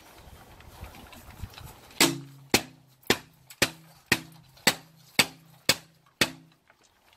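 Plastic PET bottle struck hard over and over, about two knocks a second for some four seconds, each knock with a brief hollow ring.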